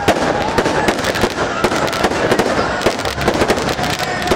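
Aerial fireworks going off, with a dense run of rapid cracks and pops from crackling shells bursting in quick succession.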